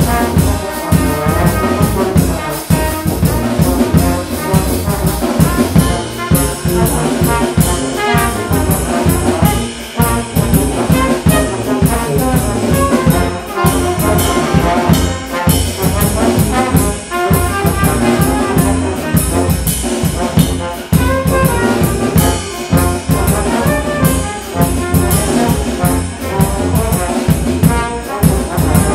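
Small brass band of trumpets, trombones and tuba playing together over a drum kit, with the drums keeping a steady beat throughout.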